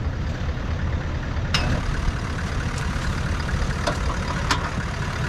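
A 4x4's engine idling steadily, with several sharp clicks as the winch hook and line are handled at the front bumper.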